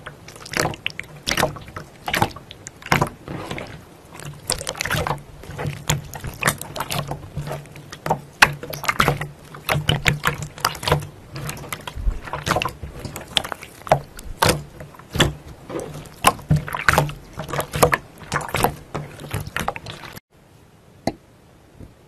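Clear slime pressed and kneaded by hand, giving a dense, irregular run of wet squelching pops and clicks. The squelching stops suddenly about two seconds before the end, leaving a few faint clicks.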